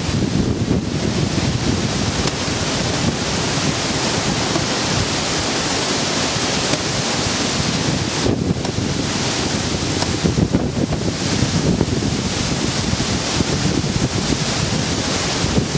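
Steady rushing wind noise buffeting the camera's microphone, with a few faint sharp clicks.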